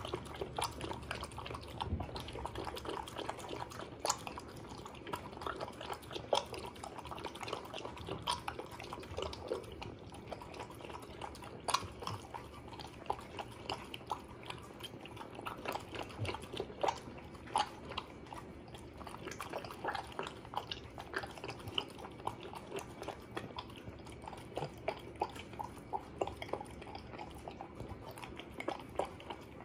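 Small dog eating wet food with chicken and chayote chunks from a stainless steel bowl: continuous irregular wet smacking, chewing and licking clicks.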